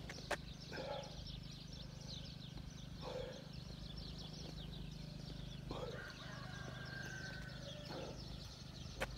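Small birds chirping and twittering continuously over a low steady hum, with a sharp click just after the start and another near the end.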